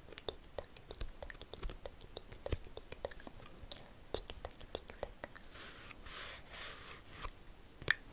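Close-miked ASMR mouth sounds: a quick, irregular stream of small wet clicks and smacks. About halfway through there is a soft breathy hiss lasting nearly two seconds.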